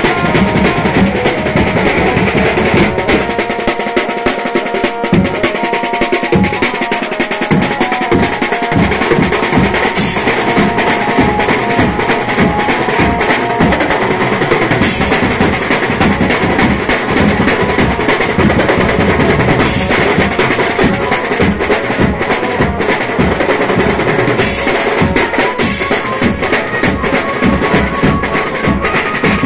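Banjo-party band playing: fast, dense drumming on a set of metal-shelled drums with cymbals and a bass drum, under a melody line from the banjo that stands out most in the first ten seconds or so.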